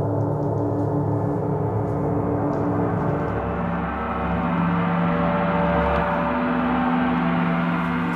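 Large planetary gongs played with felt mallets give a continuous wash of overlapping ringing tones. The sound holds steady, with new low tones swelling in about halfway through.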